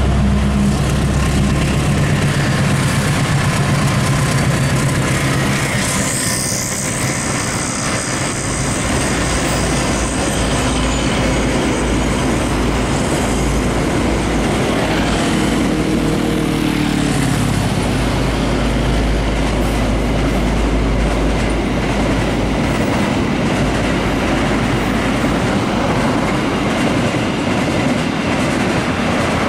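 Container freight train of flat wagons rolling past at close range, a steady rail noise throughout, with a high wheel squeal about six seconds in. A diesel truck's engine hum is heard passing at the start.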